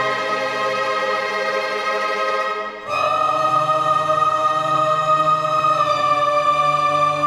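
Background orchestral film music of long held notes. It dips briefly and moves to a new chord about three seconds in.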